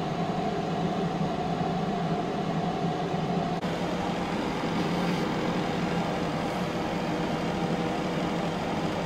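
Power XL air fryer running: the steady whir and hum of its fan blowing hot air while it cooks.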